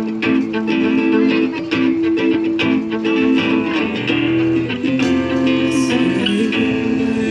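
Live band music led by a strummed guitar playing chords in a steady rhythm, with a low bass note joining about four seconds in.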